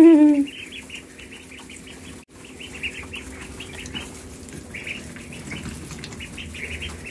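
A brood of ducklings peeping nonstop, many short high cheeps overlapping from the whole flock.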